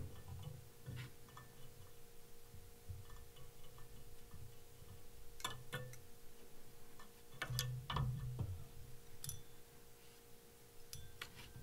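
Faint handling sounds from tying a fly in a vise: scattered sharp little clicks and ticks from fingers, thread and bobbin, bunched around the middle, over a steady low hum.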